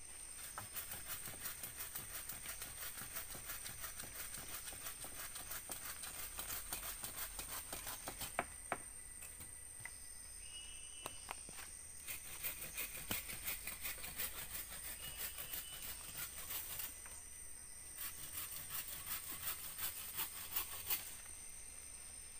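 Forest insects calling: a steady high whine under bursts of fast pulsing that stop and start, with a couple of short bird chirps about eleven and fifteen seconds in.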